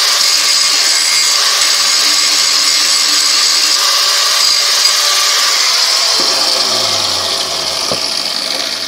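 Angle grinder grinding a steel knife blank made from an old metalworking file, held in a vise. About five and a half seconds in it is switched off and its pitch falls as it spins down, with a knock near the end.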